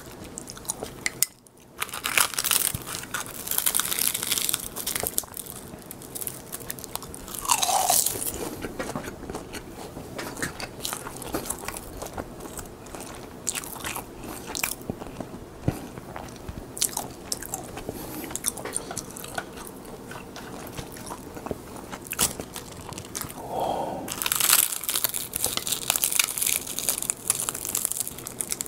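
Close-miked crunching and chewing of crisp seasoned laver (gim) sheets, cheese-flavoured. Bites crackle in bursts, the loudest a few seconds in and near the end, with softer crunching and chewing between.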